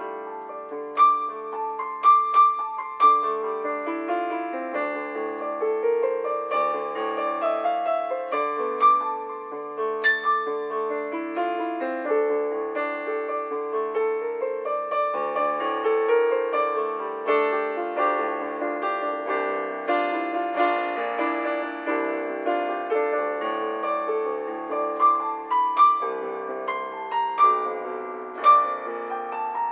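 Solo piano improvisation: a continuous flow of single notes and chords in the middle register, with a few sharper accented notes near the start and near the end.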